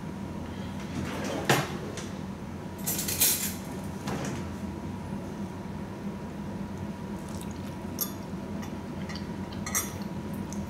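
Metal fork clinking and scraping against a glass food dish: a sharp clink about a second and a half in, a short scrape around three seconds, then a few lighter taps.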